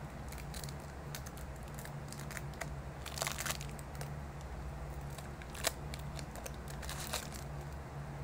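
Plastic wrapping crinkling and tearing as a boxed deck of cards is unwrapped by hand: a dense run of crackles about three seconds in, then a few single sharp snaps.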